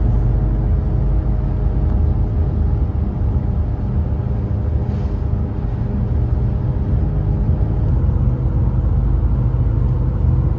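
A car on the move, with a loud, steady low rumble of engine and road noise and a constant hum.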